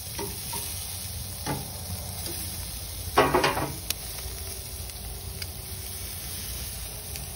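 Lobster tails and bacon-wrapped shrimp sizzling on a charcoal grill grate over open flames, a steady hiss with scattered small crackles. About three seconds in comes a louder burst lasting about half a second.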